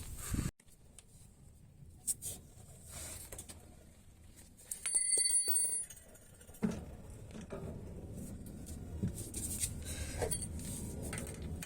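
A brief high metallic ringing, about a second long, about five seconds in, with several clear tones sounding together, as from a struck or rubbed metal part of the bicycle. Faint clicks come before it, and a low steady background noise follows.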